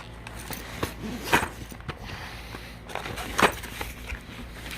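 Rummaging through a case of ammunition boxes and gear: a few short knocks and clicks as boxes and cases are moved and set down, the loudest about a second in and again near the end.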